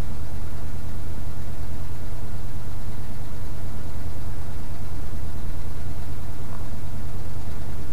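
1982 GMC C30 pickup's engine idling steadily on its own just after a freezing-morning cold start, heard loud inside the cab with its leaking exhaust. It is running rough enough to shake the truck.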